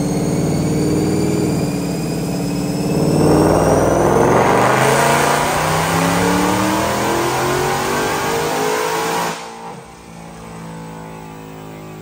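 Supercharged 5.0 L V8 of a 2020 Mustang GT with a Roush TVS 2650 supercharger and long-tube headers, making a wide-open-throttle dyno pull. Engine pitch climbs as the revs rise through the run, with a high supercharger whine. The engine cuts off throttle suddenly about nine seconds in and drops back to a lower running sound.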